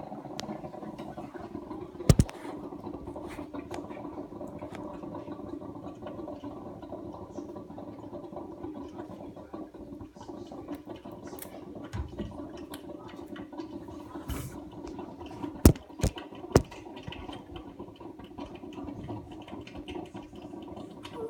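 Steady low rushing hum, with a couple of sharp knocks about two seconds in and three more in quick succession around sixteen seconds in.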